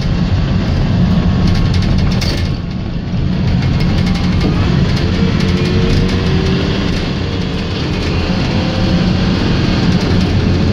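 Interior cabin noise of a VW Transporter T5 minibus on the move: a steady, loud engine and road drone with slow rises and falls in engine pitch, and scattered rattles and clicks from the body.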